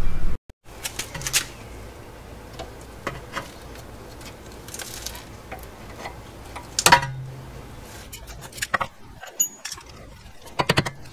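Scattered light metallic clicks and scrapes of needle-nose pliers and a screwdriver working a cotter pin out of a rusted castle nut on a car's outer tie rod end. The sharpest click comes about seven seconds in.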